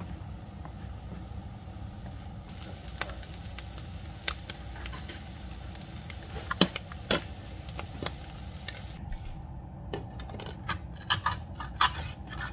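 Wooden spatula stirring mussels in a frying pan, scraping and knocking against the pan in scattered clicks, with a couple of sharper knocks about halfway through, over a steady low hum and a light sizzle of frying butter.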